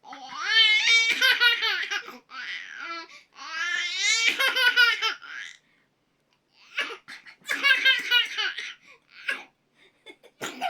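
High-pitched vocal laughter in several bursts. Two long fits of about two seconds each are followed by shorter bursts, with brief silences between.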